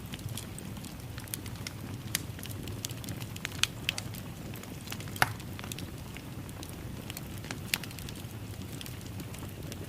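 Wood fire in a fireplace crackling: a steady low rush of flames with irregular sharp pops and snaps, the loudest about five seconds in.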